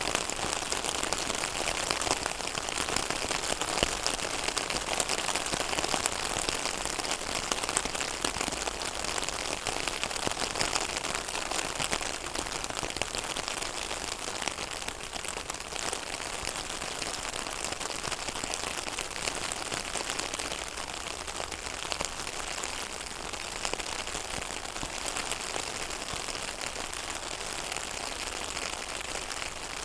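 Rain falling on a pond: a dense, steady patter of countless drops hitting the water.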